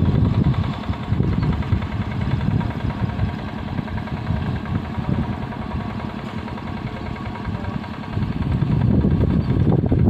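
A small engine running steadily with a low drone, dipping slightly in the middle and growing louder again near the end.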